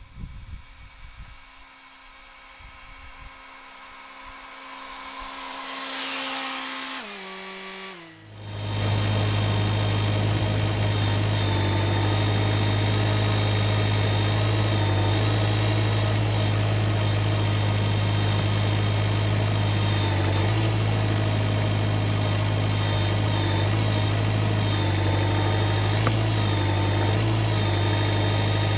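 Kubota MX5400 tractor's diesel engine running steadily. It comes in loud about eight seconds in, after a quieter stretch of rising noise.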